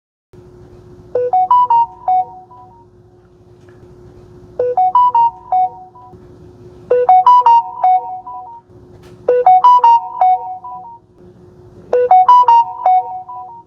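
Samsung Galaxy S22 Ultra notification sound played five times, each a short chime of a few bright electronic notes, played at 50% and 100% volume settings. A faint steady hum lies underneath.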